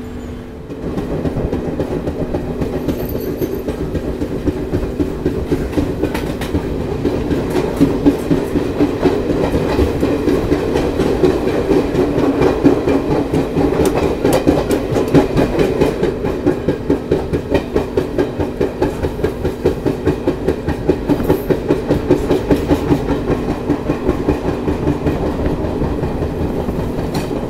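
Indian Railways passenger train running after leaving the station, its wheels clattering over the rail joints in a fast, regular rhythm.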